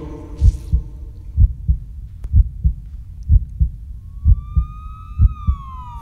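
Hip-hop backing beat playing on without vocals: a steady pattern of low kick-drum hits about three a second. After about four seconds a siren-like wail comes in, rising slowly and then falling.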